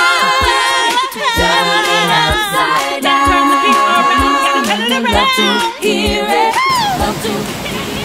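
Background music: a song with a sung vocal line over a steady beat, which stops about seven seconds in. A steady rush of running water follows.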